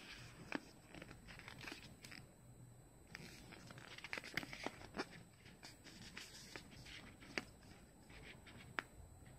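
Faint rustling of a paper CD booklet as its pages are handled and turned, with a handful of sharp clicks and taps scattered through.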